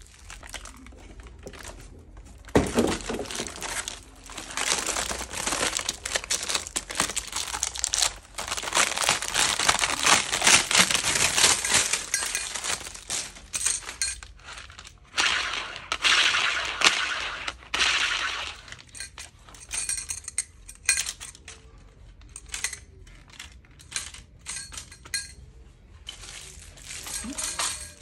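Thin plastic packaging crinkling and rustling in irregular bursts as it is pulled off new kitchen knives and a peeler, with occasional light clinks of metal utensils.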